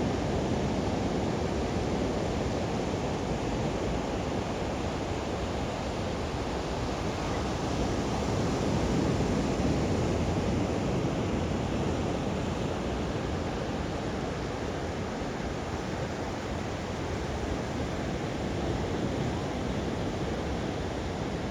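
Ocean surf washing onto a sandy beach, a steady wash of breaking waves that swells a little partway through, with some wind on the microphone.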